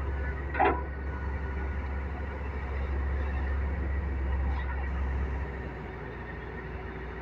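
Heavy earthmoving diesel engine running steadily with a low drone, with one brief sharp sound about half a second in; the engine eases slightly after about five and a half seconds.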